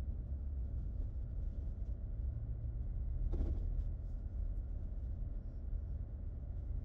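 Steady low rumble of a car's engine and tyres heard from inside the cabin while driving along a dirt clay road.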